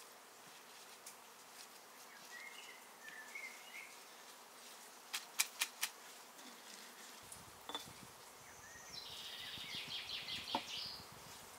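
Outdoor ambience with birds chirping, then a run of four sharp clicks. Near the end comes a dry, rattling hiss of white granules poured from a glass into a glass jar packed with basil leaves.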